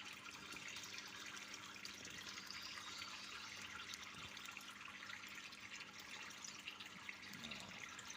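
Faint, steady trickling and splashing of aquarium water, with a low steady hum underneath.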